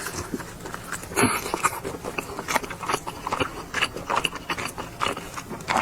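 Close-miked chewing and mouth smacking while eating braised pork belly: many short, irregular smacks and bites.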